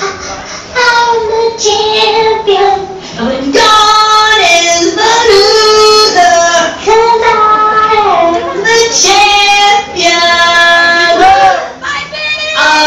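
A song with a high, bright lead voice singing long held notes that waver in pitch, with little backing heard under it.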